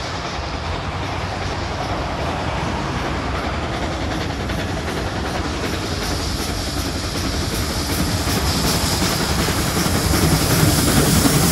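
NSWGR 59 class steam locomotive 5917, a 2-8-2, approaching under power with a dense running sound and faint, regular exhaust beats that grow louder over the last few seconds as it nears.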